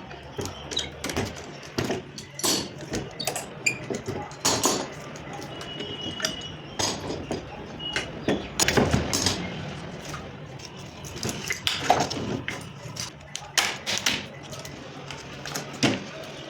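Irregular knocks, taps and clatter of plywood and laminate sheets being handled and pressed, over a faint low steady hum.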